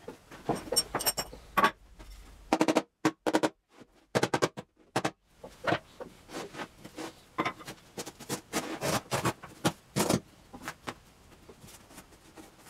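Irregular sharp knocks, taps and clatter of hand work on a wooden bentwood chair, broken by a few abrupt cuts to silence.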